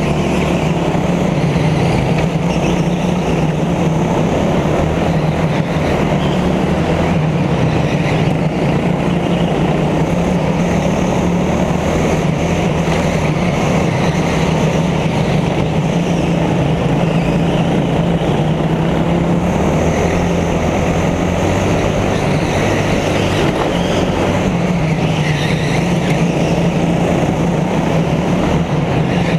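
Go-kart engine running steadily at speed, heard from onboard the kart.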